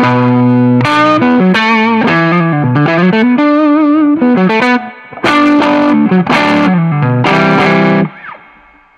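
Electric guitar through a Ceriatone Centura Klon-style overdrive pushed by an LPB-1-style clean boost, giving a mildly driven tone one gain level up. Chords and single-note lines are played, stopping about eight seconds in and ringing out.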